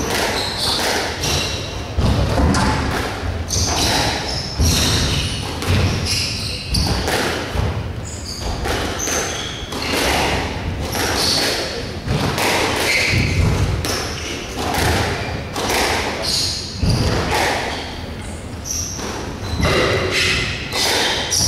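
A squash rally: the ball being struck by rackets and smacking off the walls again and again at an irregular pace, with short high squeaks of shoes on the wooden court floor in between.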